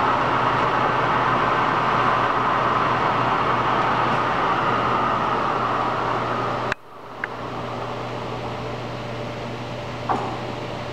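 SERVO 16 x 40 engine lathe running with its spindle under power: a steady mechanical running noise with a hum. It cuts off suddenly about seven seconds in, leaving a quieter steady running sound and a small click near the end.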